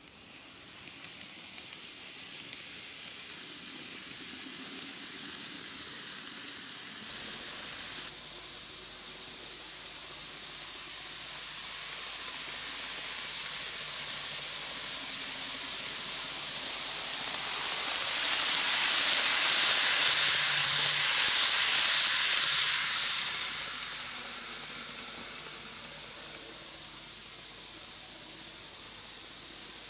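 N-gauge model train (Greenmax Keikyu New 1000 set) running on its track: a high, hissing whir of motor and wheels. It swells as the train comes close, is loudest for a few seconds past the middle, then fades as it moves away.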